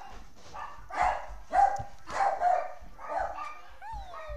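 Guinea pigs wheeking: a run of short squealing calls about twice a second, then near the end a longer whistling call that slides down in pitch.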